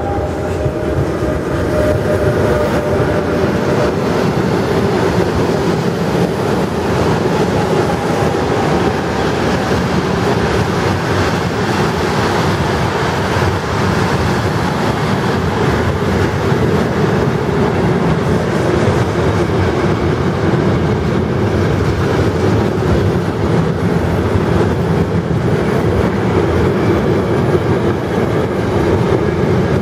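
Long intermodal freight train passing at speed, led by a BLS Cargo class 486 electric locomotive: steady rolling noise of steel wheels on the rails as the container and tank wagons go by one after another.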